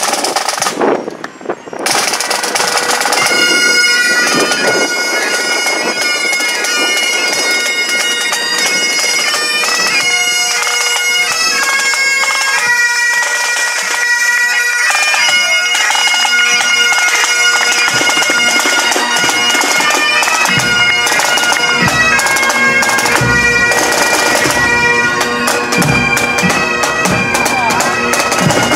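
Bagpipes playing a tune over a steady drone, coming in about two seconds in, with drum beats joining in the last third.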